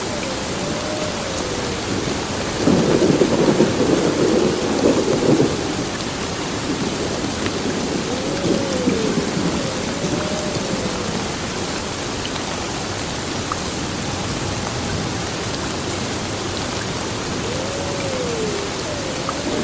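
Heavy rain falling steadily, with a rumble of thunder about three seconds in that lasts a few seconds and a fainter rumble a few seconds later. A faint rising-and-falling tone recurs about every nine seconds.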